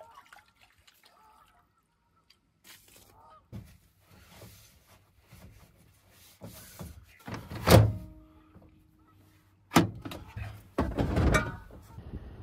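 Knocks and thuds of a small metal cooking pot being handled on a pickup's ribbed plastic tailgate liner. The loudest knock comes about two-thirds of the way in with a brief ringing tone after it, then two more thuds near the end.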